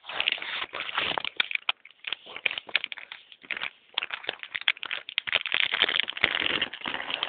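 Clear plastic packaging bag crinkling and crackling as it is handled close to the microphone, in a dense run of irregular crackles with brief pauses.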